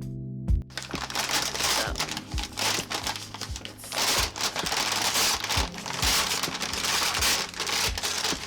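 Packaging crinkling and rustling as it is handled, starting about a second in, over quiet background music.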